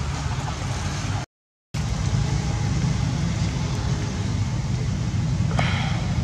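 Steady low rumble with an even hiss, cut by a brief gap of silence about a second in, with a short higher-pitched sound near the end.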